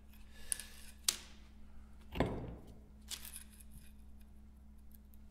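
A few sharp clicks and one duller knock about two seconds in, from a propeller shaft and a measuring tool being handled while the shaft is measured.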